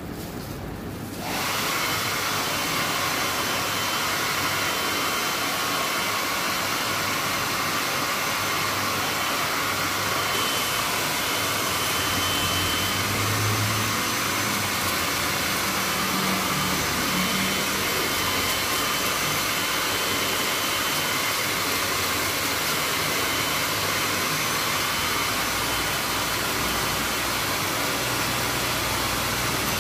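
A hair dryer switched on about a second in, then running with a steady hiss of blown air.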